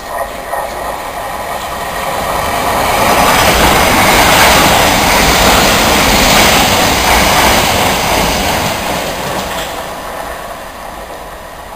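Electric passenger train passing the platform at speed without stopping. The rush of wheels on the rails builds over the first few seconds, is loudest midway, then fades as the train goes away.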